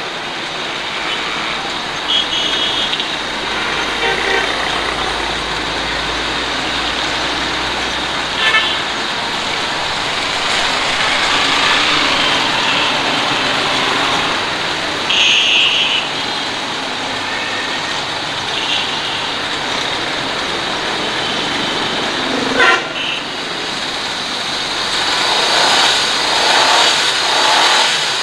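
2003 Suzuki Alto's small petrol engine running at idle with the bonnet open, a steady mechanical noise. Short car-horn toots sound about 2 and 15 seconds in, and there is a sharp knock about 23 seconds in.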